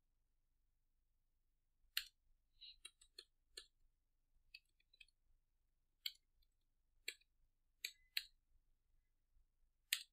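Computer keyboard keystrokes: about a dozen separate sharp clicks at an irregular, unhurried pace, starting about two seconds in.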